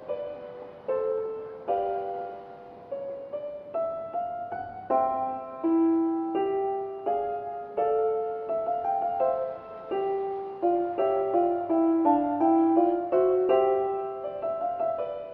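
Piano music: single notes and chords struck one after another and left to ring.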